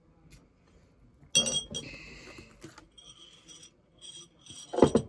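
Tableware clinking: a sharp ringing clink about a second and a half in, then a couple of louder knocks near the end.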